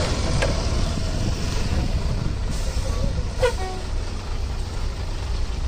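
Heavy diesel vehicle engine running with a steady low rumble, as the stuck lorry is pulled out of the mud. About three and a half seconds in there is one short, sharp pitched sound over it.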